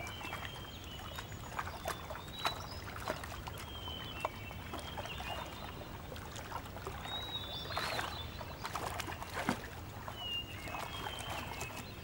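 Water splashing and lapping as a spot-necked otter swims and paddles at the surface, with splashes about 2.5, 8 and 11 seconds in. Several brief high whistles come and go throughout.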